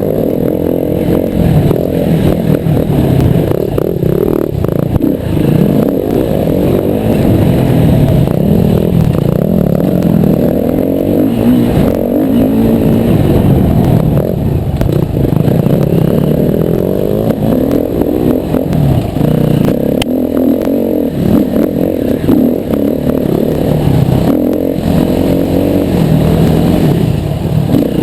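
Yamaha WR250R's single-cylinder four-stroke engine being ridden off-road, its revs rising and falling over and over as the throttle opens and closes, with occasional knocks and clatter.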